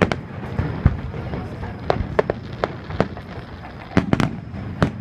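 Aerial fireworks bursting: about ten sharp bangs at irregular intervals, with a quick cluster about four seconds in, over a steady low rumble.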